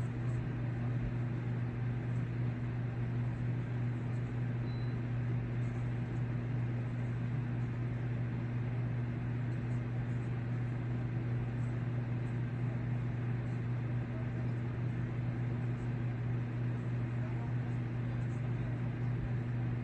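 Steady low hum with a faint hiss, unchanging throughout: background machine or electrical hum, with no other sound.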